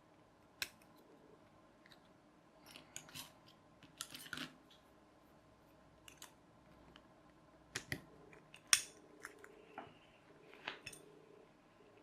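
Small metal parts of a lever door handle's spring mechanism clicking and clinking as they are handled and taken apart on a table, in scattered sharp clicks and short rattles, the loudest a little before nine seconds in.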